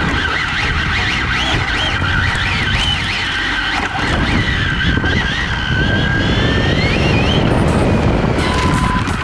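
Arrma Infraction 6s BLX RC truck at speed, heard from its onboard camera: the brushless motor's high whine swoops up and down in pitch as it slows and speeds up, ending in a long rising whine as it accelerates hard. Under it runs a steady rush of tyre and drivetrain noise.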